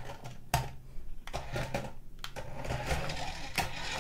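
Toy remote-control car's small electric motor and plastic gears whirring as it drives and turns, with a few sharp knocks.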